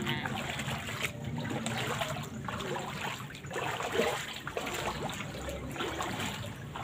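Water trickling and splashing in an irregular patter, with no steady rhythm.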